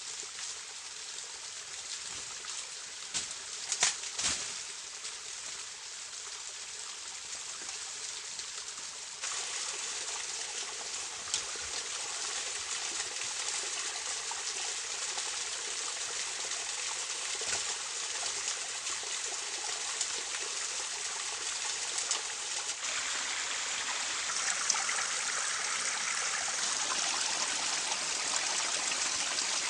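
Steady sound of running water, growing louder about nine seconds in and again near the end, with a few sharp knocks about four seconds in.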